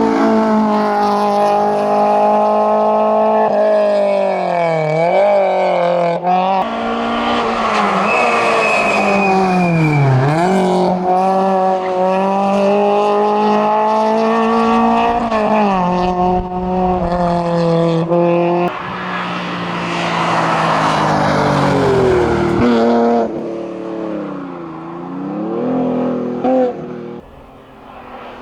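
Race car engines at full throttle on a hillclimb: a Citroën Saxo revving hard, with its pitch dropping sharply several times on lifts and gear changes. About two-thirds of the way in, a BMW 325i (E36) with its straight-six revving up and down follows, fading toward the end.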